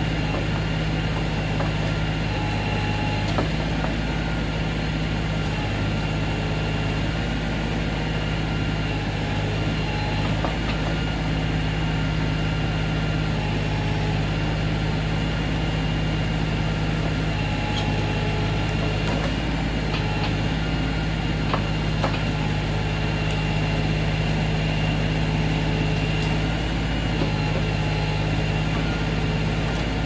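LS XR3135 compact tractor's diesel engine running steadily while its backhoe lifts a dirt-packed stump, with a few faint knocks.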